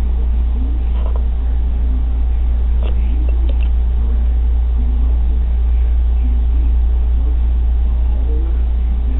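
Steady low hum with faint, indistinct voices in the background and a few light clicks about three seconds in.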